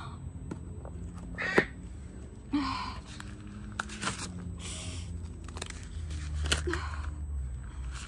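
A woman sobbing, with a few loud choked cries and gasping breaths between them.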